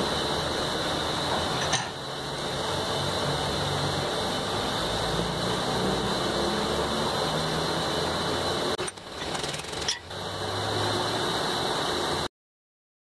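Steady mechanical hum and hiss, like a motor or blower running, with two short breaks about 2 s and 9 to 10 s in; it cuts off abruptly to silence near the end.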